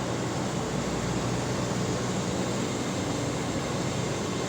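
Steady mechanical drone of running heavy machinery: a low hum under an even hiss, with no changes.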